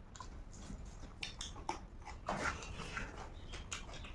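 Close-up eating sounds of people eating rice by hand: wet chewing and lip smacks in a run of short clicks, with a louder, longer smacking sound about two and a half seconds in.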